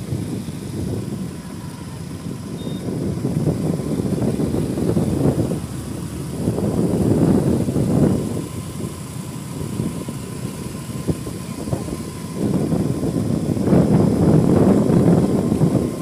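Bajaj Pulsar NS200 single-cylinder motorcycle running at road speed, heard from the bike itself, with heavy wind rumble on the microphone. The rumble swells louder about halfway through and again near the end.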